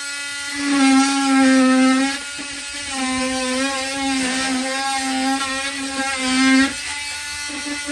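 Handheld power drill run in three spells of a second or two each, its motor pitch wavering under load as it works into the door framing.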